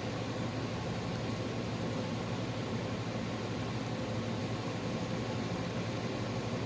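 Steady hum and hiss of a running car heard from inside the cabin, with a few steady low tones.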